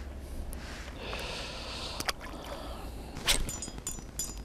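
Small spinning reel with its drag set loose, ticking in a quick run of clicks from about three seconds in as line is pulled off it by a hooked fish. A short breathy hiss about a second in.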